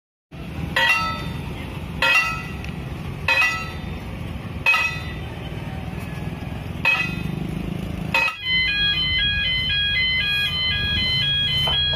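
Railway level-crossing warning alarm. Six ringing strikes at uneven intervals over a low rumble, then from about eight seconds in the crossing's electronic alarm sounds a warning of two tone patterns alternating about three times a second.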